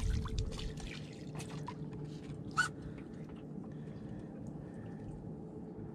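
Water sloshing and lapping against a boat's hull, with scattered light clicks and knocks of fishing tackle being handled over the rail and a faint steady hum underneath. There is a brief louder noise about two and a half seconds in.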